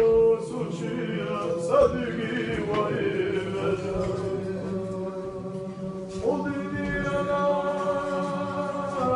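Men chanting a nazm, an unaccompanied Islamic devotional song, with a steady low held note under the melody. New phrases begin with a rising swoop, about two seconds in and again past six seconds.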